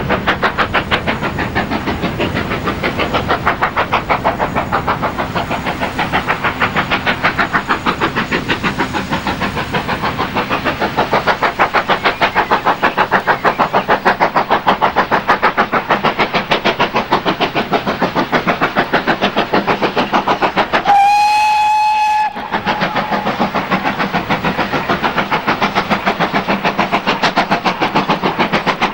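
GWR 'Hall' class two-cylinder 4-6-0 steam locomotive working a passenger train, its exhaust beating in a rapid, even rhythm. About two-thirds of the way through it sounds one whistle blast lasting over a second.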